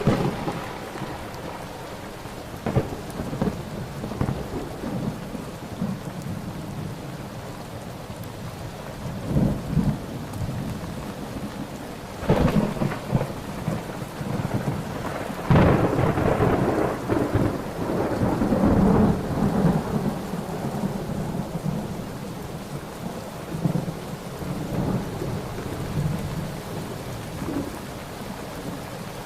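Thunderstorm: steady rain with repeated thunder, sharp cracks right at the start and about twelve seconds in, and a long rolling peal from about fifteen to twenty seconds in, fading back to rain.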